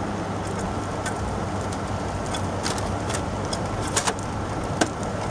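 Window air conditioner running steadily, its compressor humming and fan blowing, running well on a newly fitted dual run capacitor. Several short plastic clicks and knocks come as the filter is pushed into the front grille, the loudest about four seconds in.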